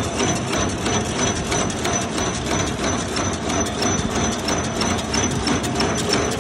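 High-speed vertical sachet packaging machine running: a fast, even clatter of mechanical clicks over a steady machine drone, with a thin, high steady tone.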